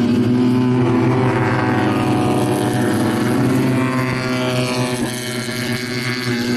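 Several two-cylinder Fiat 500 race cars running hard around the circuit together, their overlapping engine notes rising and falling in pitch as they accelerate and slow through the corners.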